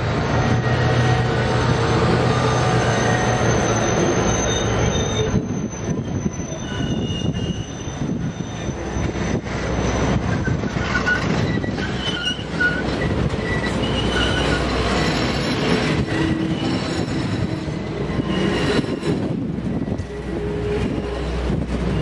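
Steel-wheeled passenger cars rolling past close by at low speed, a steady rumble of wheels on rail with rail-joint clatter and short high wheel squeals on the curve.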